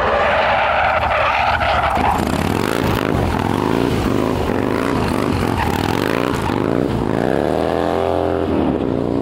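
Motorcycle engine revving up and down repeatedly as the bike rides past, its pitch rising and falling several times. A harsh rushing noise runs through about the first two seconds.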